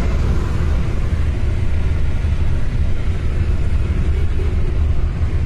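Steady low rumble of a car moving at speed, road and engine noise heard inside the cabin.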